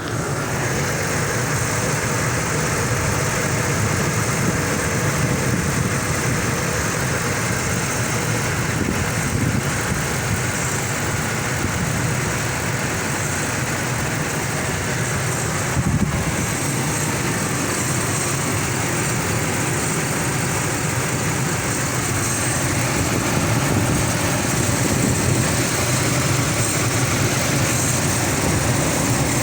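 An engine idling steadily, carrying an unidentified noise that the owner blames for vibrations.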